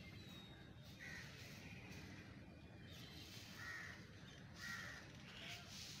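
Faint outdoor bird calls: three short calls spaced a second or two apart, over a low steady background rumble.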